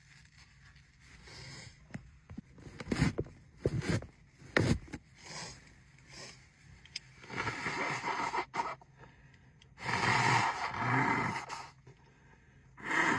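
A woman's sneezing fit: three sharp sneezes in quick succession a few seconds in, then two longer, noisier outbursts later on.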